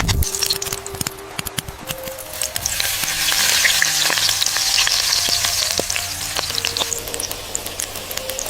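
Food sizzling as it fries in a hot pan, a steady hiss full of small crackles and spatter pops, growing louder about two and a half seconds in.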